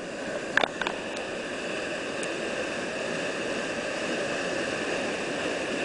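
Steady rush of whitewater and a cascading waterfall, with two brief sharp sounds under a second in.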